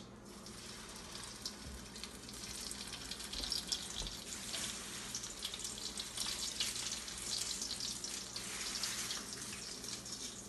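Potato-and-chicken masa turnovers (pasteles) frying in hot oil in a skillet: a steady sizzle of many small crackles, which grows louder about two seconds in.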